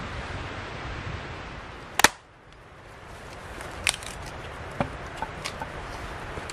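A steady outdoor noise haze broken by one sharp crack about two seconds in, followed by a few lighter clicks and snaps.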